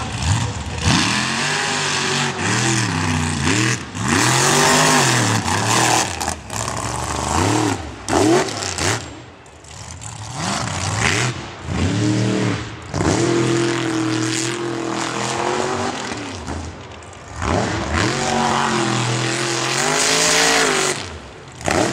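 Mud-bog buggy engines revving hard on launch in several surges, the pitch rising and falling again and again, over the hiss of spinning tyres throwing dirt.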